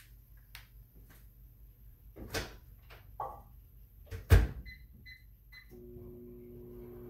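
Microwave oven: a few knocks and clicks, the loudest a door-like thunk about four seconds in, then three short keypad beeps, and the oven starts running with a steady hum near the end.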